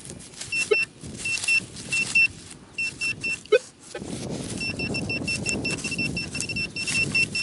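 Handheld metal-detecting pinpointer beeping in short high pips, at first in scattered bursts, then, from about halfway in, in a fast, steady run as it closes on buried metal, with grass rustling as it is pushed through.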